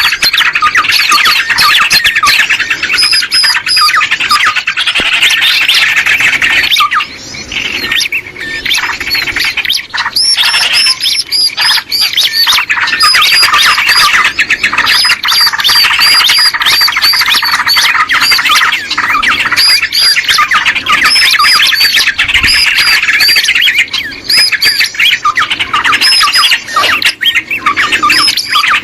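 Dense chorus of many small birds chirping and calling rapidly and continuously, a bird-luring (pikat) recording meant to draw small birds in; it briefly thins about seven seconds in.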